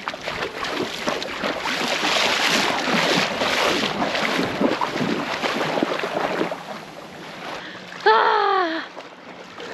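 Shallow sea water splashing and wind buffeting the microphone as someone wades through the water. About eight seconds in, a woman gives a short, loud shout whose pitch falls.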